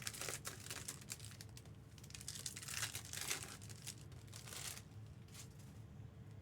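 Crinkling and rustling of plastic wrap and foil trading-card packs being handled, in several bursts that die down near the end.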